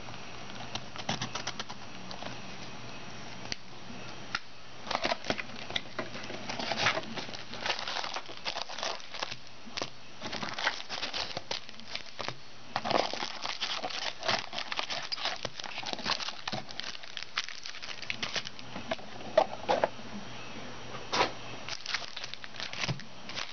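Foil trading-card packs from a box of 2009 Upper Deck Heroes football crinkling and rustling in irregular bursts as they are handled, taken out of the box and stacked.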